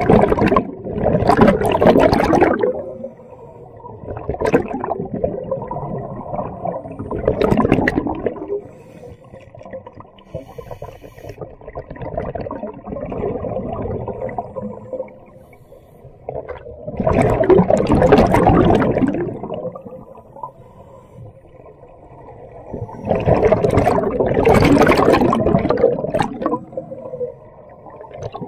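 Scuba diver breathing through a regulator underwater: exhaled air bubbles out in loud rushes every several seconds, with quieter stretches between.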